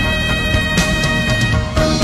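Background music: held notes over scattered percussion hits.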